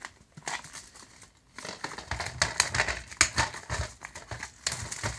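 Plastic shrink wrap being peeled and crumpled off a DVD case, crinkling and crackling. There are a few light clicks at first, then dense crinkling from about a second and a half in.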